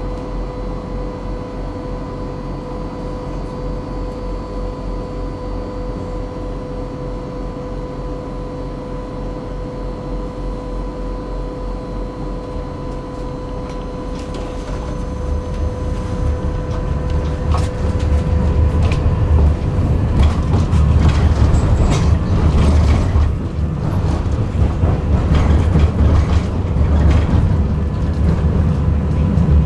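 Tram interior: a steady electrical hum with a high, even tone while the tram stands. About halfway through, the tram pulls away and the rumble of its motors and wheels on the rails grows louder, with a run of knocks and clatter as it rolls over the track.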